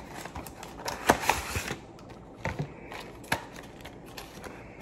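A cardboard product box and its clear plastic blister tray being opened and handled: scattered clicks, taps and rustles, busiest about a second in.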